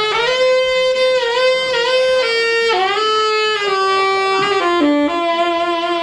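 Solo saxophone playing a slow melody of held notes, with a few slides between notes around the middle, settling on a long held note near the end.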